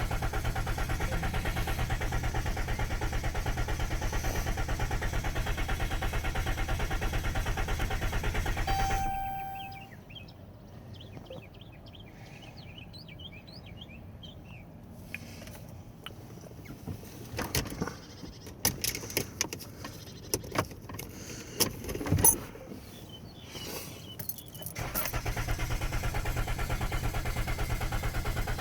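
A 2013 Ram van being cranked without starting: a steady, fast, rhythmic starting sound for about nine seconds that stops, a few clicks and knocks, then the same sound again for the last few seconds. The engine never catches.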